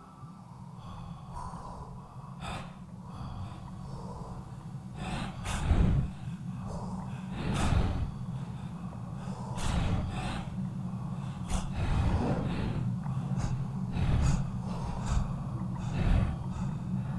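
A person breathing heavily, with sharp gasping breaths in and out every one to two seconds over a steady low hum.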